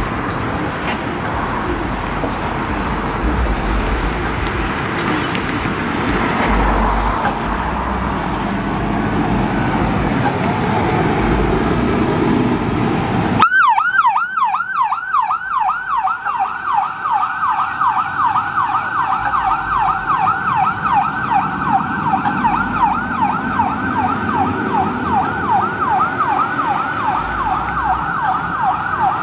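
Heavy fire apparatus engines rumbling for about the first half. After a sudden change, an emergency vehicle's electronic siren runs in a fast yelp, sweeping up and down about three times a second.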